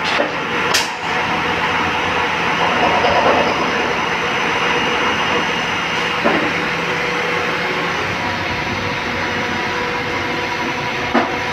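CNC lathe running with the spindle and chuck turning at speed while a turret-held drill cuts at the centre of the workpiece: a steady machine hum carrying several steady tones. Short sharp knocks sound about a second in, just after six seconds, and near the end.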